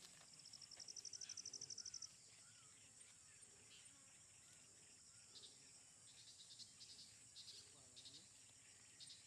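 Faint insect chorus: a steady high-pitched drone, with a fast pulsed trill that sounds for about two seconds near the start and shorter chirping bursts in the second half.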